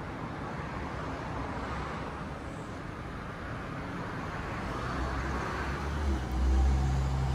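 Street traffic noise, with a vehicle's engine rumble growing louder from about five seconds in as it passes close, loudest near the end.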